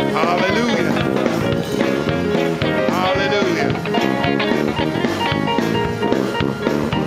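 Live gospel music from a church band, with guitar runs over a steady drum beat.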